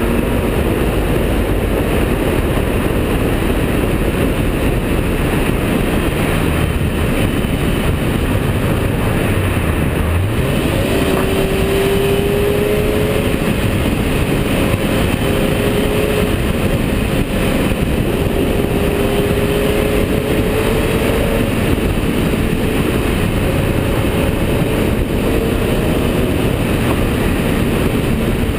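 Heavy wind and tyre noise on a camera mounted low by the wheel of a Ferrari 348 GTS on the move. The car's V8 engine runs underneath, its note rising and falling gently.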